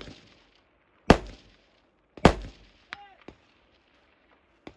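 Two sharp gunshots about a second apart, each with a short echo, following the tail of a shot fired just before. A moment after the second shot come faint ticks and a brief ring from a hit on distant steel.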